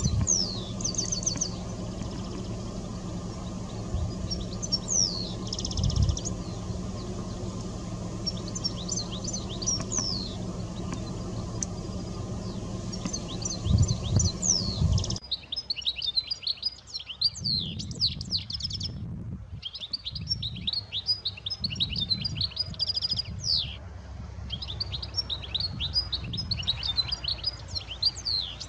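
European goldfinches singing: short, high, tinkling twittering phrases over a steady low rumble with a few low thumps. About halfway the rumble drops away and the twittering becomes dense and almost continuous, broken by brief pauses.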